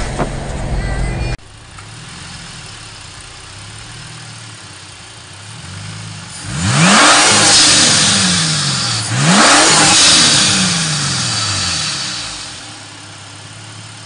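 For about a second, the car is heard under way on the freeway. Then the tuned Ford Falcon XR6 Turbo's turbocharged 4.0-litre straight-six (about 400 rwkw) idles at standstill and is revved twice. Each rev rises sharply and falls back slowly to idle, with a loud rushing sound of induction and turbo air at the top.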